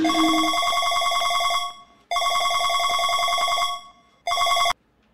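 Mobile phone ringtone with a fast trilling ring: two rings of about a second and a half each, then a short third ring that cuts off suddenly as the call is answered.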